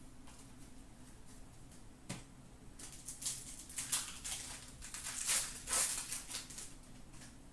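Foil trading card pack wrapper crinkling in the hands as it is opened, a dense run of crisp crackles in the second half, after a single tap about two seconds in.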